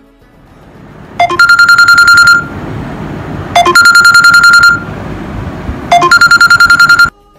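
Smartphone alarm going off: three times, a short rising run of notes is followed by about a second of rapid pulsing beeps, and it cuts off suddenly near the end.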